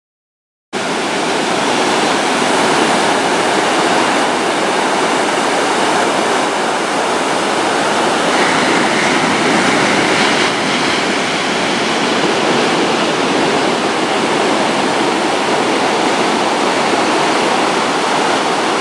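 Ocean surf washing onto a sandy beach, a steady rushing noise that starts suddenly under a second in.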